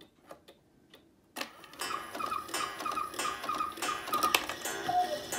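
Quail cuckoo clock striking the hour: after a second of near quiet with a few soft clicks, the quail pipes give a rapid run of high two-note quail calls, and near the end the cuckoo begins its lower, slower two-note call for the hour, over the clock's ticking.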